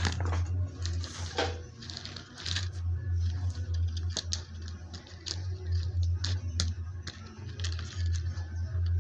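Toy RC transforming robot car being run: a low motor hum that stops and restarts a few times, with frequent sharp plastic clicks and clatters.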